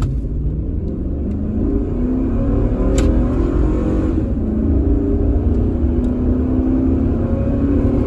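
Chevrolet Tahoe accelerating hard from a standstill at full throttle, heard from inside the cabin. The engine note climbs, drops back as the automatic transmission shifts up, and climbs again. This is a 0-to-60 pull that the occupants call gutless and slow.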